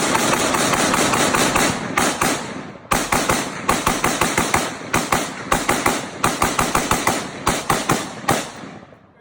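Rapid semi-automatic gunfire emptying a magazine as fast as the trigger can be pulled, at about six or seven shots a second. There is a short pause about three seconds in, then the firing resumes and tails off near the end.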